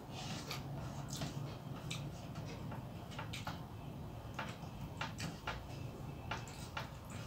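Close-miked eating sounds: irregular small clicks and smacks from chewing and from fingers mixing rice on a metal plate, over a steady low hum.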